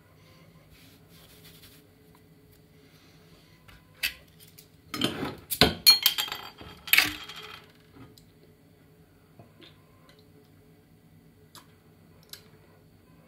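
Glass beer bottle and small hard objects being handled at a counter: a sharp click about four seconds in, then a rapid cluster of clinks and knocks from about five to seven seconds in, with a few faint clicks later.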